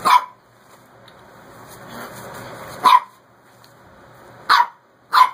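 Young Shar-Pei puppy barking at a mop: four short, sharp barks, one at the start, one about three seconds in and two close together near the end.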